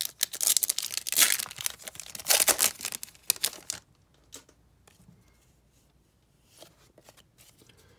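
A trading-card pack's foil wrapper being torn open and crinkled by hand for about four seconds. After that it goes quiet apart from a few light taps as the cards are handled.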